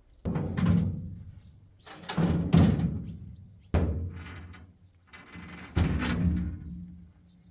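Metal side board being fitted onto a flatbed farm trailer: four loud clanks and bangs, a second or two apart, each ringing on briefly, the third the sharpest.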